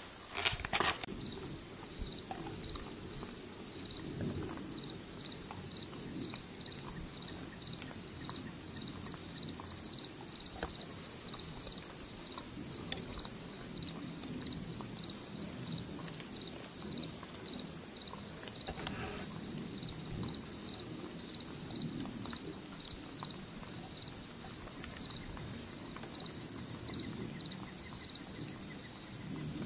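Steady chorus of insects, a finely pulsing high buzz with a fainter higher band above it, over a low rustle. A few sharp knocks sound in the first second.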